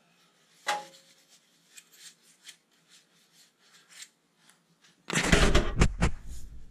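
A rag rubbing and scuffing over a metal engine valve cover as it is wiped down, with a short metallic clink about a second in. About five seconds in comes a loud, brief burst of scuffing and rumbling handling noise.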